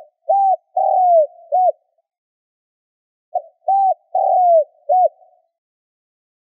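Spotted dove cooing: two phrases about three seconds apart, each a short run of four notes with a longer, falling coo near the end.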